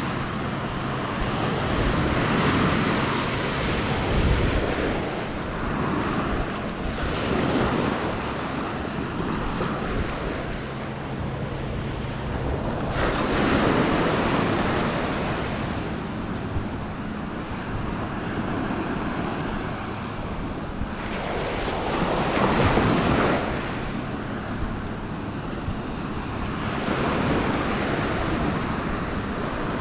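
Small waves breaking and washing up a sandy beach, the rush of surf swelling and fading every few seconds, with wind buffeting the microphone.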